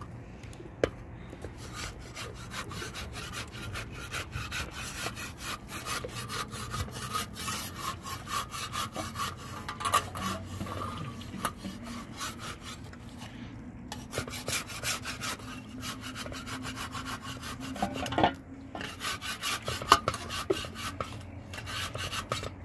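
A folded cloth rubbing and pressing a flatbread against a hot iron griddle over a wood fire, a dense irregular scraping with crackling clicks and a few short pauses.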